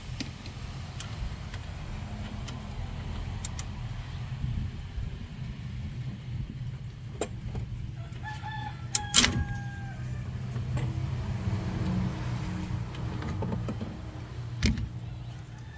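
A rooster crows once, about eight seconds in, a call of about two seconds that drops in pitch at the end. A steady low hum runs underneath, with a few sharp clicks.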